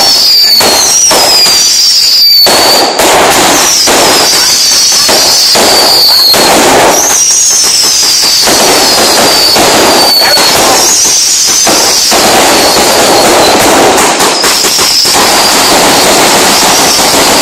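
Fireworks going off in a continuous loud barrage of rapid bangs and crackling. Shrill whistles that fall in pitch sound over it again and again, one every second or two.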